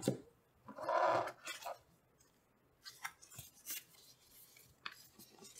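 A graphics card's cardboard accessory box being opened and its small contents handled: a knock, a short rubbing of cardboard about a second in, then a string of small clicks and taps.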